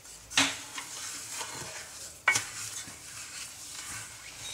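Wooden spoon stirring and scraping brown sugar into melted butter in a stainless steel saucepan, over a faint steady hiss. Two sharper knocks stand out, a small one about half a second in and a louder one a little after two seconds.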